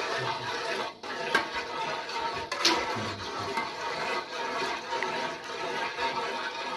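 Metal ladle stirring watery dissolved qurut (dried yogurt) in an aluminium pot: liquid sloshing, with sharp clicks of ladle on pot, the sharpest about a second and a half in and near the middle.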